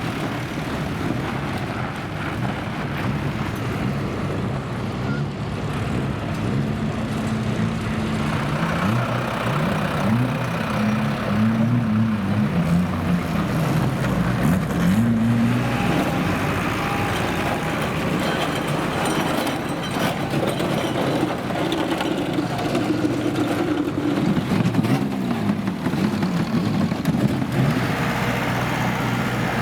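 Banger racing cars' engines running and revving round the track, several engine notes rising and falling over a steady rumble.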